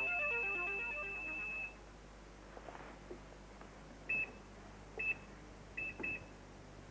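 Sharp microwave oven's touch-control panel beeping: one long, steady high beep, then four short beeps as keys are pressed, the last two close together.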